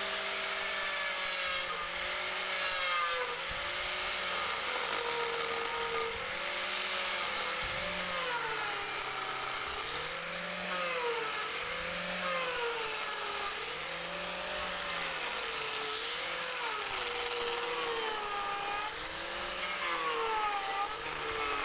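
Angle grinder fitted with a TurboPlane carving disc, running as it shaves a pine block. Its whine dips in pitch and recovers every second or two as the blade bites into the wood.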